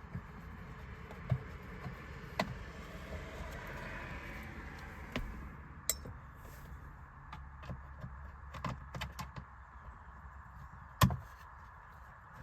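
Scattered small clicks, taps and rattles of a Torx screwdriver and hand tools working on the screws of a plastic steering wheel trim cover, with one sharp, loudest click near the end.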